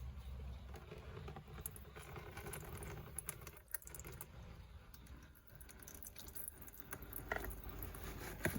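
Faint scattered clicks and light taps of hands and a tool working on the car's oil filter, with two sharper clicks near the end.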